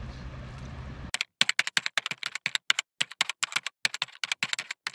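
Steady outdoor background noise for about a second. It cuts off suddenly into rapid crisp clicks and crunches, several a second with dead silence between them: footsteps on a gravel footpath.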